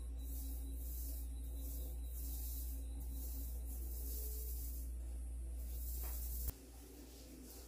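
Paint roller being worked over a painted surface: a hissing rasp that swells and fades with each stroke, stroke after stroke. A steady low hum underneath cuts off abruptly with a click near the end.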